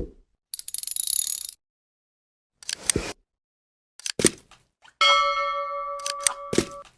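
A string of separate sounds: a brief hiss, a couple of sharp knocks, then a bell-like ring that holds for nearly two seconds.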